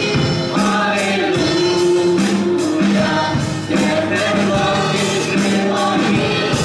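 Congregational worship song: a man sings the chorus into a microphone while a congregation sings along over instrumental accompaniment.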